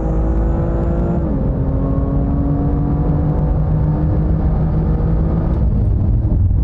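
BMW M2's turbocharged inline six-cylinder engine pulling hard under acceleration. Its note rises steadily, drops suddenly with an upshift about a second in, then climbs again. Near the end the clear engine note gives way to a rougher low rumble.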